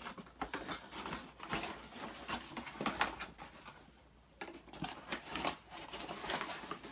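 Irregular rustling and small knocks of packaging being handled as a tripod stand is packed back into its box, with a short lull about four seconds in.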